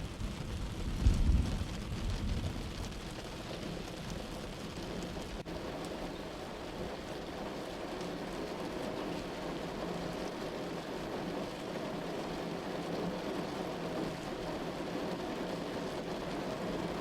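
Heavy rain falling steadily, with a low roll of thunder that peaks about a second in and fades out within the next couple of seconds.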